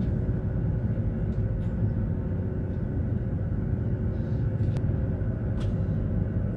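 Steady low rumble of a moving vehicle, with a faint steady hum above it and a few light ticks.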